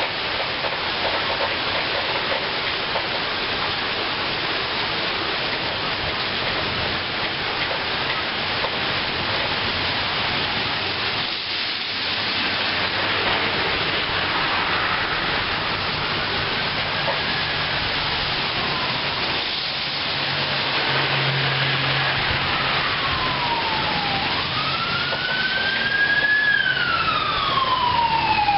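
Steady heavy rain, with emergency vehicle sirens wailing up and down: faint about halfway through, then louder and overlapping near the end as fire trucks approach.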